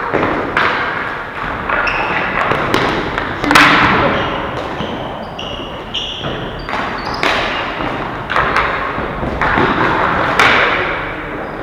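Ball hockey in play in an echoing hall: repeated knocks and thuds of sticks, ball and players against the floor and boards. The two loudest come about three and a half and ten and a half seconds in. Short high-pitched squeaks sound in between.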